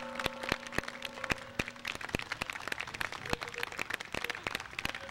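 Audience applause of many scattered claps, while the last sustained piano chord dies away about two seconds in.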